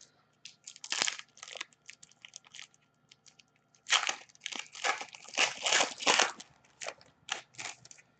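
Hockey card pack being handled and opened, its wrapper crinkling and tearing and the cards rustling: a run of crackly rustles, loudest about a second in and again from about four to six and a half seconds.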